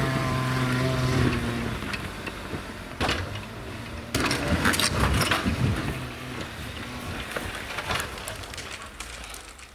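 Off-road Jeep's engine running, its pitch held steady for about the first second, with loud knocks and clatter about three seconds in and again from about four to five and a half seconds.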